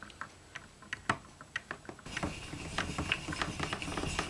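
Small metal clicks and ticks of a screwdriver on the mounting screws of a Fender Precision Bass's tuning machines. About halfway in this turns into a denser, continuous run of rapid clicking and scraping from the tuner hardware being worked by hand.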